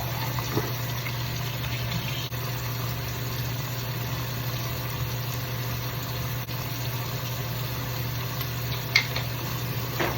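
Steady low mechanical hum under an even hiss, with a single sharp click about nine seconds in.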